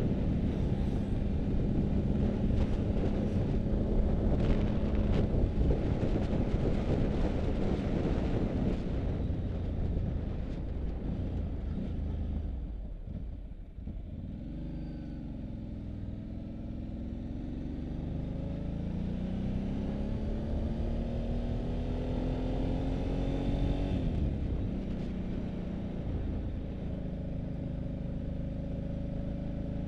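Motorcycle engine heard from onboard, with wind rushing over the microphone. The engine drops off as the bike slows for a hairpin bend about 13 seconds in, then rises steadily in pitch as it accelerates out of the turn, changes up a gear about 24 seconds in and settles to a steady cruise.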